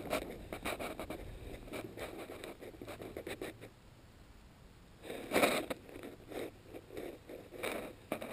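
Close rustling and scraping, like material rubbing near the microphone, in irregular bursts with a quieter stretch in the middle and the loudest burst about five seconds in.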